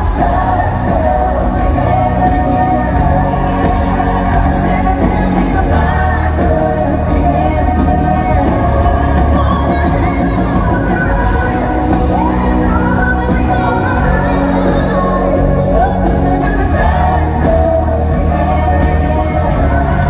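Live pop-country band with a woman singing lead into a microphone, with heavy bass under held, sliding vocal lines, amplified through an arena sound system.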